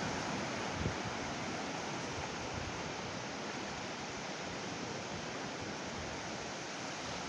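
Sea surf washing onto a beach, a steady, even rush of water.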